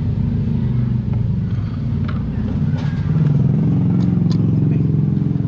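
An engine running steadily at idle, rising slightly about three seconds in, with a few light clicks over it.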